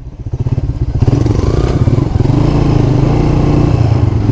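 125cc single-cylinder motorcycle engine running under way, its note building over the first second, then holding steady.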